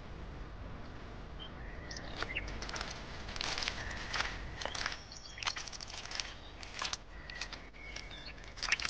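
Footsteps swishing through tall grass at a walking pace, beginning about two seconds in, with a few faint bird chirps.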